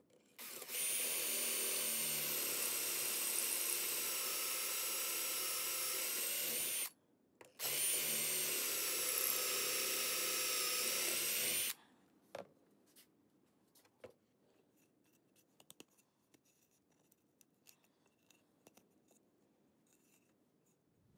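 Cordless drill boring two pocket holes with a pocket-hole bit through a pocket-hole jig's drill guide. It makes two runs with a short stop between, about six and four seconds long, each a steady high whine that winds up at the start and down at the end. Faint clicks and handling noises follow.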